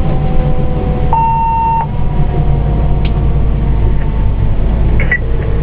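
Pierce Enforcer fire engine running with a steady low rumble, under faint tones that slowly fall in pitch. A single steady beep lasting under a second comes about a second in.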